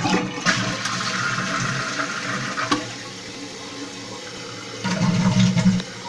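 Eljer Savoy toilet flushing with the tank lid off. Water rushes out loudly for about the first three seconds, then the fill valve refills the tank with a quieter steady hiss, and a louder low rush of water comes briefly near the end.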